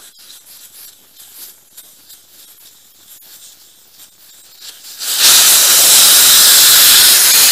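Air escaping from a motorcycle's front tyre valve as the tyre is let down: a faint hiss with small clicks at first, then about five seconds in a sudden loud, steady rush of air.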